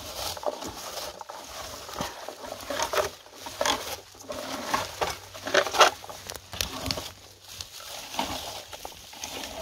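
Rustling and crackling of low bilberry shrubs and twigs as wild blueberries are picked, coming in irregular bursts, loudest around the middle.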